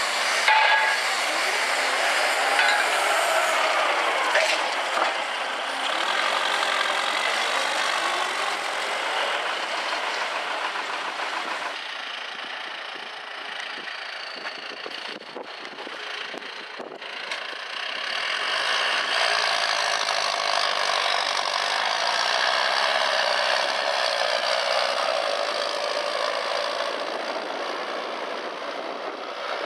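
Diesel engines of farm machinery, a telehandler and a tractor, running and working. The sound changes about 12 seconds in and again near 18 seconds.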